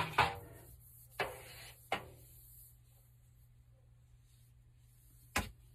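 PVC pipe pieces being handled: a few light knocks and clacks, one near the start, two more around one and two seconds in, and a sharp one near the end, over a faint steady low hum.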